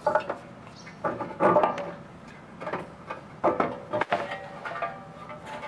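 Car parts being handled at a car's stripped front end: a series of separate clatters and knocks about a second apart, with a sharp knock about four seconds in.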